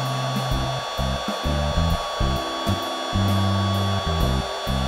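Marvy embossing heat gun running steadily, its fan blowing hot air onto the end of a fly line to melt it into a welded loop. Background music plays underneath.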